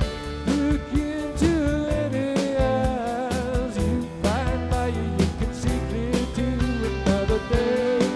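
Live rock band playing an instrumental passage: a lead line of bent, wavering notes over electric bass and a steady drum-and-cymbal beat.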